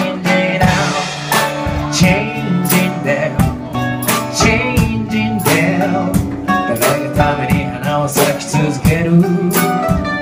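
Live acoustic band music: acoustic guitars strummed in a steady, close rhythm under sustained chords.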